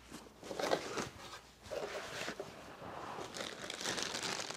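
Plastic bags crinkling and a cardboard box rustling as bagged cables are handled and lifted out, in short, irregular rustles.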